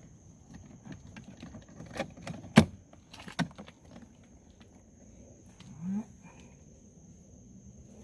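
Plastic clicks and knocks as an interior door handle is worked into its opening in a car door panel, the loudest knock about two and a half seconds in. A short, low rising tone follows about six seconds in.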